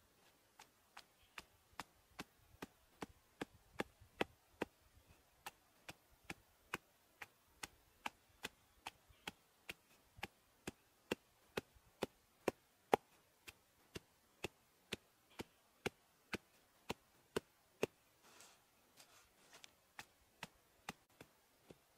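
Wooden pestle pounding sliced lemongrass, garlic and spice in a mortar: a steady beat of sharp knocks, about two to three a second.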